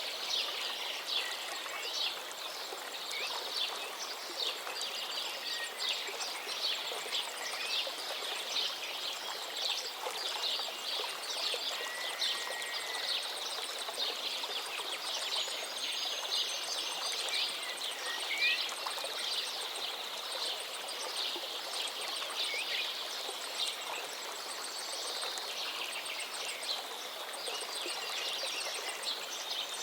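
A chorus of many small birds chirping and singing in quick, overlapping calls, with an occasional gliding whistle, over the steady rush of a river.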